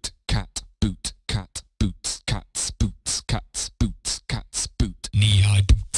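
A voice rapidly chanting "boots and cats" as a beatbox rhythm, each stroke falling in pitch, speeding up to about four strokes a second. About five seconds in, a sustained deep bass and synth swell come in under the beat, opening into electronic dance music.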